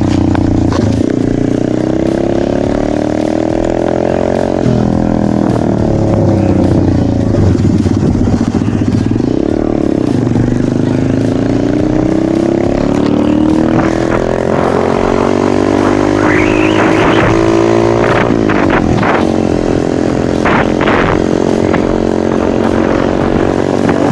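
Motocross motorcycle engine running under way, its pitch rising and falling again and again as the throttle opens and closes and the gears change.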